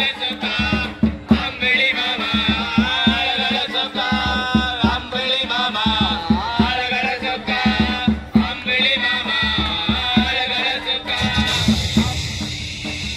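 Tamil folk music: a voice singing a gliding, ornamented melody over hand drums that keep a fast, steady beat.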